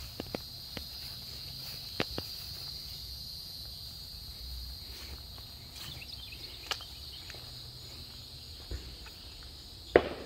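Insects chirring in a steady high drone, with scattered footsteps and small clicks as someone walks on grass, and a sharp knock near the end.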